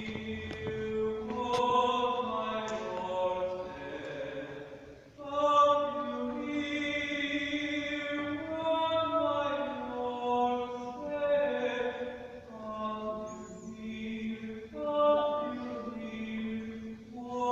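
Mixed choir of men and women singing a cappella in slow, sustained chords, breaking briefly between phrases about five seconds in and again near the end.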